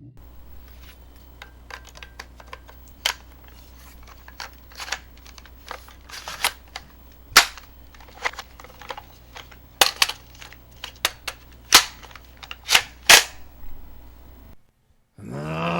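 An irregular series of sharp pops and cracks, some much louder than others, over a low steady hum; they stop about fourteen and a half seconds in, and a groaning voice begins just before the end.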